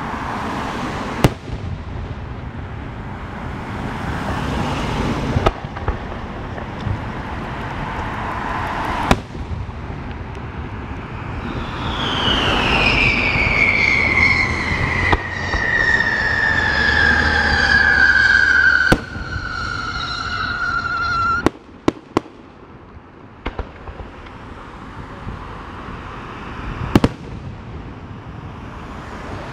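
Fireworks display: aerial shells launching and bursting, with sharp bangs every few seconds over a steady rumble. Midway, a long whistling tone falls slowly in pitch for about ten seconds, and then the rumble drops off suddenly.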